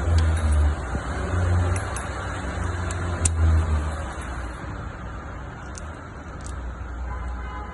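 Toyota 2GR V6 engine running, a low rumble that swells louder three times in the first few seconds and then settles.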